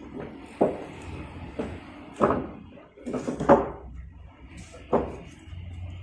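Heavy sawn teak beams knocking against each other as they are lifted and shifted on a timber stack: about five sharp wooden knocks, the loudest just past the middle.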